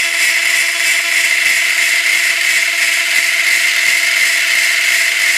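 Small hand-held electric chain-sharpening grinder running with a steady whine, its grinding wheel held against a saw-chain tooth and giving a continuous high grinding hiss.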